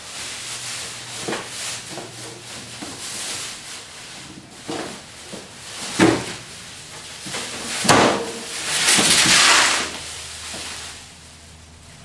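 Plastic wrap rustling and the microwave oven scraping against its cardboard box and styrofoam packing as it is lifted out, with a few knocks, the sharpest about six and eight seconds in, and a louder stretch of rustling just after.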